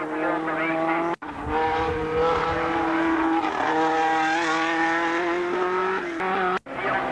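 Formula 3 race car engine running at high revs on a hillclimb, holding a high, steady note that dips once briefly and then climbs slowly. The sound drops out for an instant twice.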